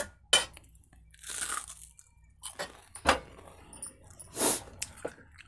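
About half a dozen short crunches, rustles and knocks close to the microphone while crisp fried food is handled; the sharpest come about a third of a second in and about three seconds in.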